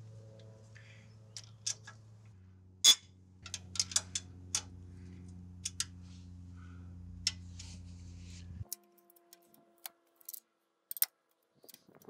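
Scattered sharp metallic clicks and knocks from a socket wrench working the turbocharger-to-header bolts, the loudest about three seconds in. Under them is a low steady hum that cuts off suddenly about two-thirds of the way through.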